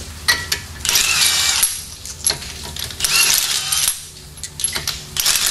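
Steel lug nuts clinking and rattling against each other and the wheel studs as they are handled and tried on one by one, several short metallic clinks with a brief ring. Each nut is being tested for bad threads, since some bind after a couple of turns.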